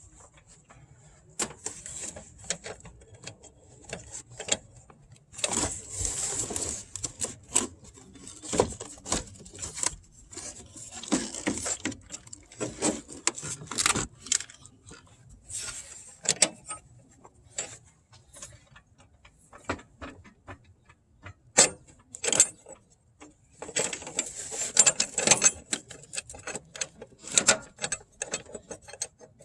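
Metal hand tools and parts clinking and clattering, with many sharp clicks and knocks and a few short stretches of quick scraping and rattling.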